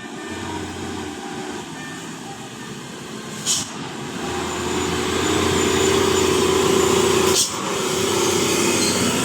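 A bus's diesel engine running and growing louder as it draws near, with a short hiss of air about three and a half seconds in and a sharp burst of noise near the end.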